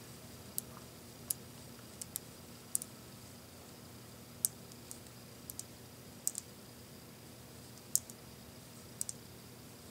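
Small neodymium magnet balls (a mix of Buckyballs and Zen Magnets) clicking as they snap together while a string of them is wrapped around by hand. The clicks are sharp and irregular, about fifteen of them, some in quick pairs.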